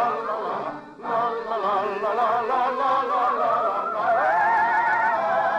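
Operetta music: a high operatic voice sings with wide vibrato over the orchestra, rising to a long held note in the second half.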